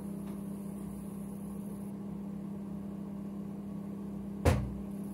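Microwave oven running with a steady low hum. One sharp knock about four and a half seconds in.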